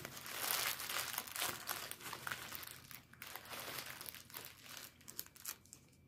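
Food packaging crinkling and rustling as it is handled and opened, a dense crackle with sharper snaps, thinning out near the end.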